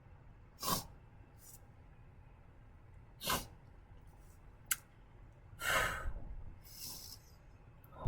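A woman sniffling and drawing breath while crying: several short sniffs, the longest about six seconds in, with a small sharp click about halfway through.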